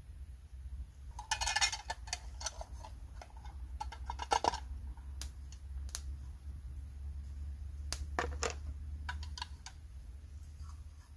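Scattered clicks, taps and clatter of a plastic food tub and a metal mess tin being handled as stew is tipped into the tin, with the loudest bursts about a second and a half in and about four seconds in, over a low steady rumble.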